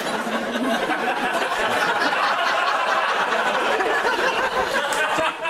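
Studio audience laughing loudly and continuously.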